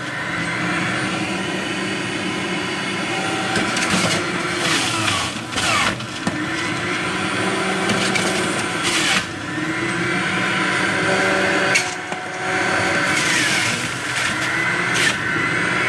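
Breville centrifugal juicer running, its motor note sagging and rising again several times as it works through pieces of honeydew and apple. Several sharp cracks and snaps come through as the fruit is cut up.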